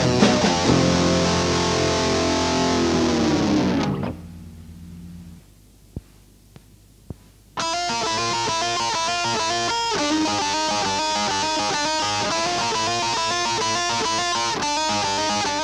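Guitar rock from a 1990s fuzzpop demo cassette. One track ends about four seconds in, its last chord sliding down in pitch as it dies away. A short quiet gap with a few faint clicks follows, then the next track starts abruptly with a picked electric guitar figure.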